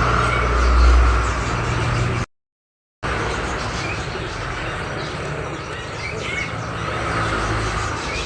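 Caged songbirds chirping in short calls over a steady background din, with a low vehicle rumble swelling and fading in the first two seconds. The sound cuts out completely for under a second a little after two seconds in.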